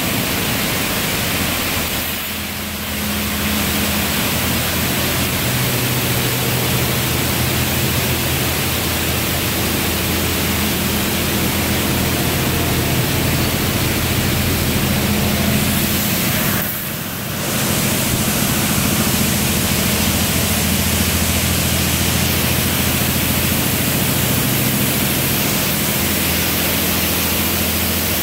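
High-pressure water spray from a Washworld Razor touchless car wash arm hitting a pickup truck: a loud, steady hiss over a low, steady pump hum. The spray drops away briefly twice, about 2 seconds in and again about 17 seconds in.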